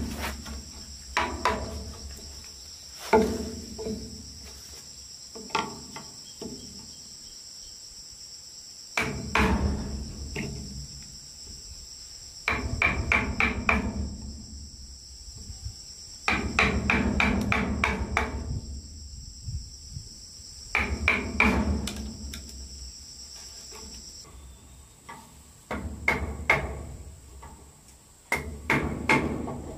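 Wooden mallet striking a wood chisel into a timber beam, cutting a mortise in quick bursts of several knocks with short pauses between. A steady high insect drone runs behind it and drops away about two-thirds of the way through.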